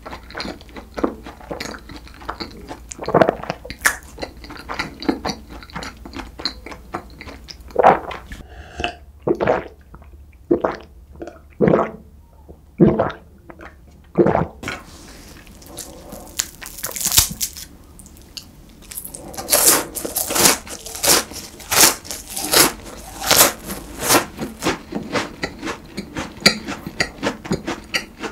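Close-miked eating of flaky croissant pastry: soft chewing at first, a few gulps of a drink through the middle, then loud, crisp crunching and chewing of flaky pastry from about halfway on.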